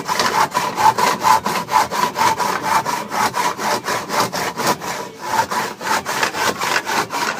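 Hand saw cutting through a pine leg for a workbench, in fast, even back-and-forth strokes of about four to five a second.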